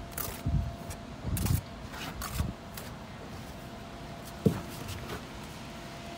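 Steel trowel scraping wet mortar onto the end of a concrete block, several short scrapes in the first couple of seconds, then one sharp knock about four and a half seconds in.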